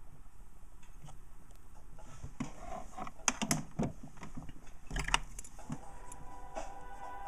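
A few clusters of small clicks and light rattles from handling a wax carving tool and a wax model at the bench, loudest a little past halfway.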